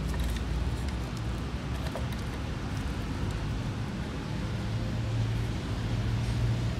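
Steady low rumble of nearby vehicle traffic, swelling slightly near the end. A few faint light clicks in the first couple of seconds, as the plastic fuel pump module parts are handled.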